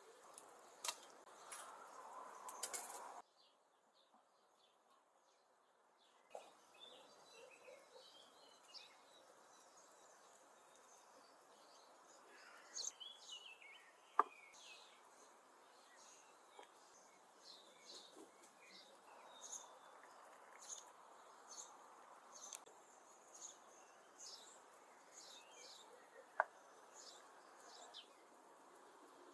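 Faint garden ambience with small birds chirping now and then. It opens with a few seconds of crackling that cut off suddenly. There are two sharp clicks, one a little before halfway and one near the end.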